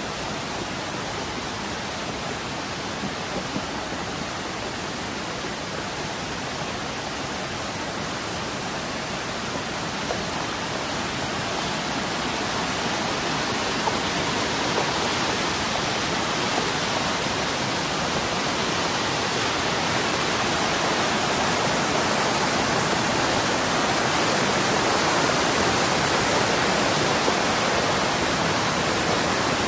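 Floodwater rushing down a street in a fast torrent: a steady, dense rush of water that grows gradually louder from about a third of the way through.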